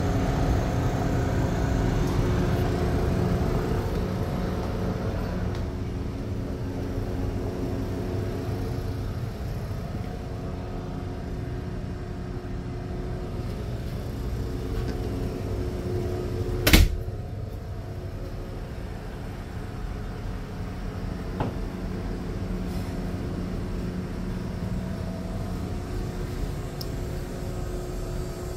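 A steady mechanical hum with a low rumble and a few held tones. One sharp knock comes about two-thirds of the way through, and a faint click follows a few seconds later.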